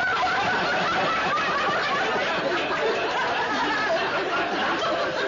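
Audience laughing and chattering, many voices overlapping without a break.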